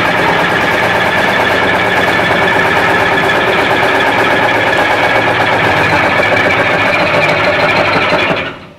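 Stainless-steel industrial basket centrifuge running: a loud, steady machine hum with several steady whining tones and a fine fast rattle. The sound drops away abruptly near the end.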